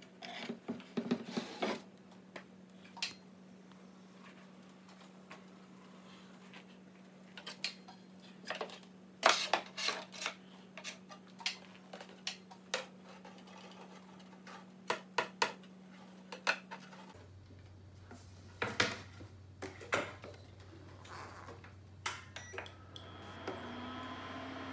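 Scattered clinks and taps of sliced hot dog pieces and fingers on a stainless steel frying pan and a wooden cutting board, coming in irregular clusters. Near the end a portable induction cooktop switches on with a steady hum and a thin high whine.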